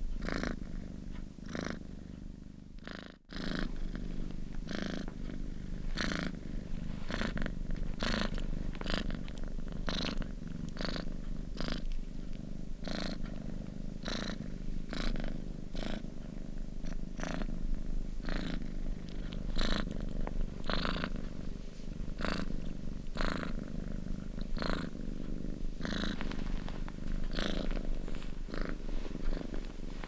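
Domestic cat purring steadily close up, a low rumble with a rasp of breath repeating a little more than once a second as it breathes in and out. The sound dips out briefly about three seconds in. The purring is that of a relaxed, contented cat.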